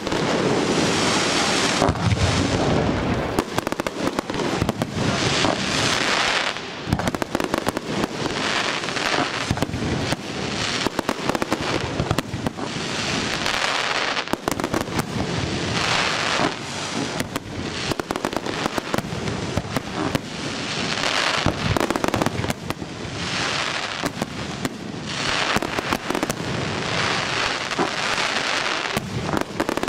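Fireworks display: a continuous barrage of shell bursts and bangs, with swells of dense crackling every couple of seconds from crackling-star effects.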